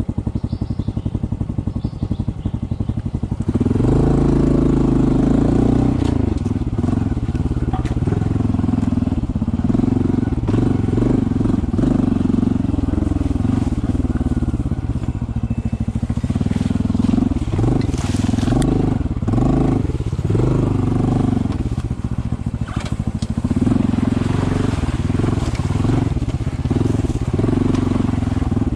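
Honda CT125's single-cylinder four-stroke engine putting along evenly at low revs, then about four seconds in it gets louder and runs under changing throttle as the bike rides on, its pitch rising and falling.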